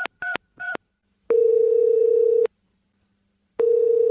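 A phone keypad sounding its last three dialling tones in quick succession, then the line ringing out: two long, buzzy tones of the same pitch with a pause between, the call going unanswered.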